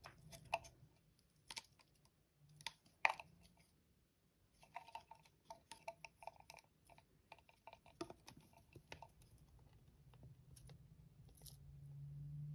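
Faint scattered clicks and taps of a plastic deli cup being handled to shake a feeder cricket out, with a quick run of small clicks partway through. A low hum swells near the end.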